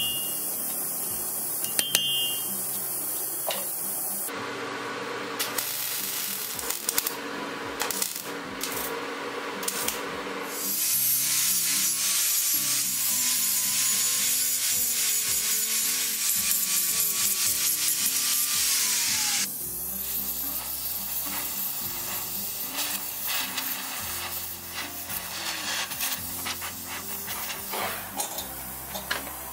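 Hammer blows on hot iron at an anvil near the start. Then, from about ten seconds in, an angle grinder grinds steel: a steady hiss with a thin whine that cuts off about twenty seconds in. Soft background music runs underneath.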